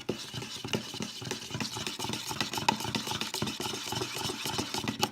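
A fake-blood mixture of powdered sugar, water and food colouring being mixed: a rapid, steady clatter.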